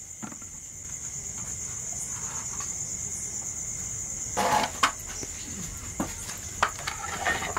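Crickets chirring steadily in a high, unbroken trill. A few light clicks and one short, louder noise about four and a half seconds in sound over it.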